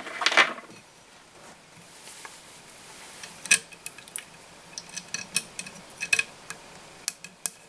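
Small sharp clicks and taps of hard plastic tubing against the metal of an HMH tube-fly holder in a fly-tying vise as the tube is fitted onto it. One louder click comes about three and a half seconds in, then a scatter of quicker clicks near the end.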